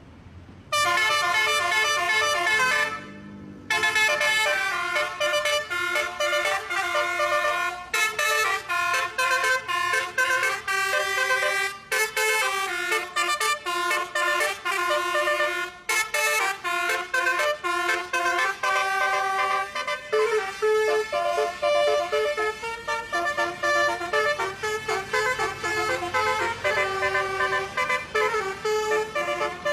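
Basuri telolet bus horn playing a fast melody of short horn notes, the tune driven by an Azkduino controller. There is a brief pause about three seconds in, then the tune carries on.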